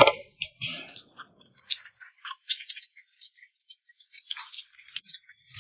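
Eating at a table: chewing, with small scattered clicks and ticks of chopsticks against dishes, and one sharp knock at the very start.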